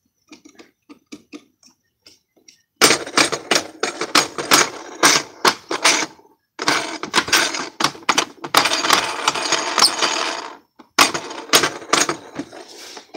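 Plastic parts of a Bissell CleanView Helix Deluxe upright vacuum's floor head rattling and clicking as they are handled at the brush roll. The clatter is dense and loud, in three long stretches with short breaks about six and ten and a half seconds in.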